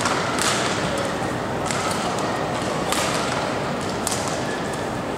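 Badminton rally: rackets striking the shuttlecock in four sharp cracks a little over a second apart, over a steady hall noise.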